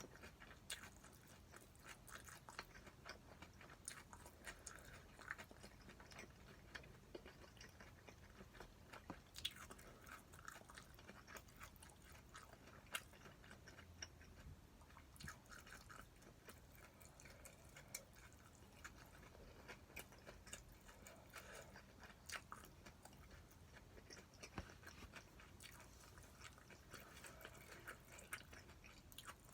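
Faint sounds of a person eating stir-fried pork: soft chewing with scattered small clicks and taps throughout, the sharpest about nine and a half seconds in.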